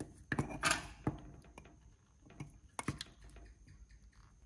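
Small handling sounds: a few sharp clicks and taps of small hard parts, with a brief scraping rustle just under a second in.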